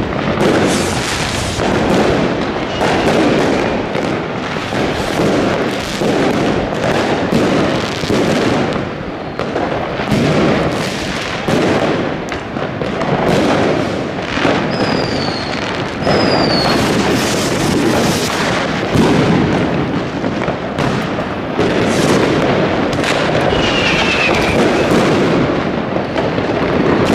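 Dense New Year's fireworks: many overlapping bangs and firecracker crackle, going on without a break, with a couple of short falling whistles about halfway through and another near the end.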